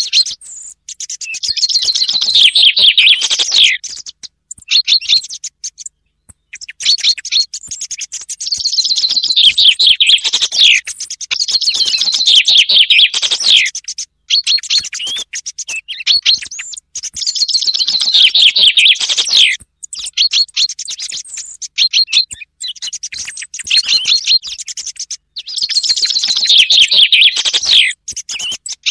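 Common chaffinch song repeated about five times, each a descending trill that ends in a flourish. Between the songs come short, fainter groups of notes, part of a lure recording that mixes chaffinch song with soft song thrush calls.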